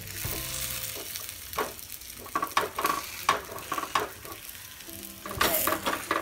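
A suji-besan cheela sizzling steadily as it fries in oil on a hot tawa over a medium flame. A metal spatula presses and scrapes it against the pan in a run of short strokes, with a louder stretch of scraping about five seconds in.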